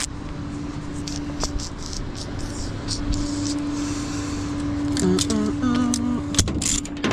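Vehicle engine idling with a steady hum, over scattered clicks and handling knocks, with a brief voice-like sound about five seconds in.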